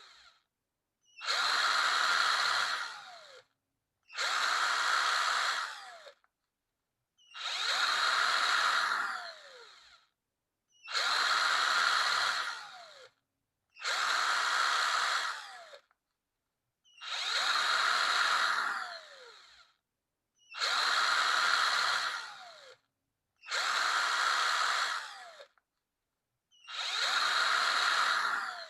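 Electric drill run in about nine short bursts of a couple of seconds each. After each trigger release the motor's whine falls in pitch as it spins down.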